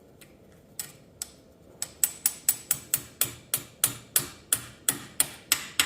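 Small hammer tapping a heated bearing down onto the steel pinion shaft of a Case 310G bulldozer transmission. A few scattered taps come first, then from about two seconds in a steady run of sharp metallic taps, about three a second, each with a short high ring.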